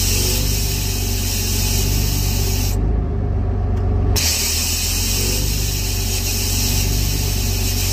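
The log loader's diesel engine runs steadily under a loud high hiss of hydraulic oil blowing over a relief valve. The hiss stops for about a second and a half near the middle, then starts again. The relief is dumping the pressure that should build on the open side of the delimber knives.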